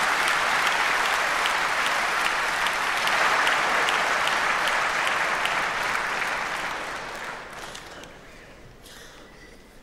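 Audience applauding steadily, then the applause dies away over the last few seconds.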